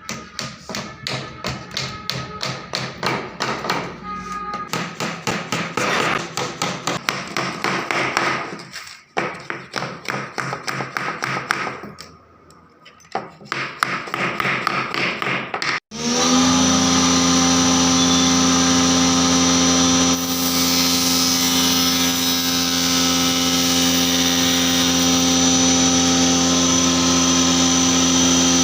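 Rapid repeated hammer strikes or taps on wood, several a second, with a brief pause near the middle. After a sudden cut, a power tool's motor runs steadily.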